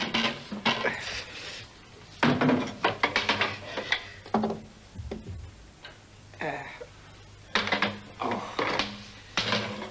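A small wooden classroom chair scraped and knocked about on a hard floor, in several separate bursts of scraping and clattering.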